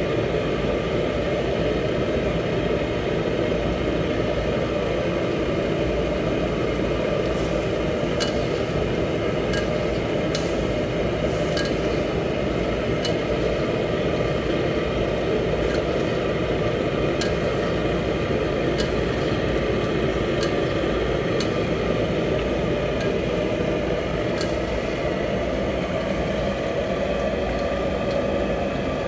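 Chicken simmering and sizzling in gravy in a steel wok over a commercial gas burner, under a steady rushing noise, with scattered sharp clicks and pops through the middle.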